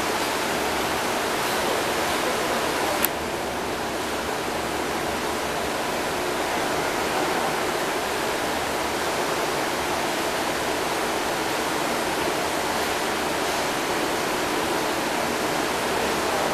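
Steady rushing hiss of aquarium aeration, air bubbling up through the tank water. A single click comes about three seconds in, after which the rushing is slightly softer.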